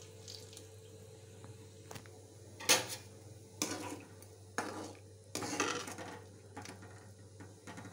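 Steel ladle stirring hot water in a metal kadai, knocking and scraping against the pan about once a second, the loudest knock between two and three seconds in.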